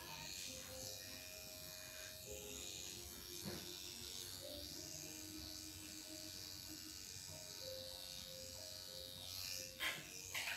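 Faint steady buzz of a small electric motor, with quiet music underneath. Two short sharp sounds come near the end.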